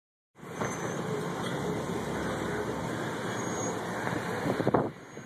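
Steady rumble of road traffic, with a few knocks near the end before it drops off sharply.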